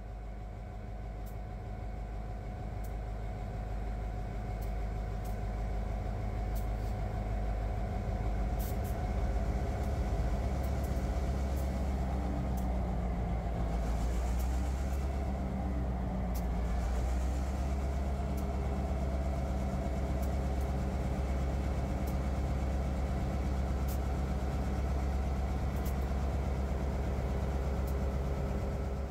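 Diesel locomotive engines of a Union Pacific snow-spreader train running steadily with a deep hum, growing louder over the first several seconds. A rush of higher noise swells and fades in the middle.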